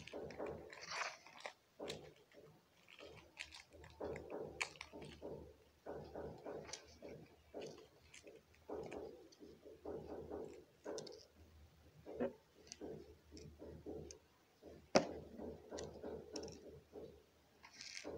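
Irregular crackling and rustling of a paper greeting card being handled while decorations are pressed onto it, with one sharp click about fifteen seconds in.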